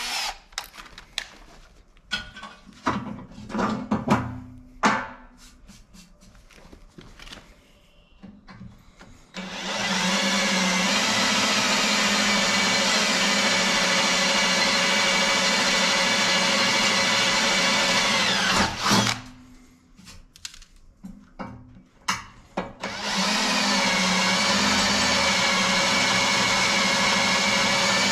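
Cordless drill boring a small pilot hole into the metal top edge of a tractor loader bucket. After a few seconds of clicks and knocks, the drill runs steadily for about nine seconds and winds down. It starts again after a short pause.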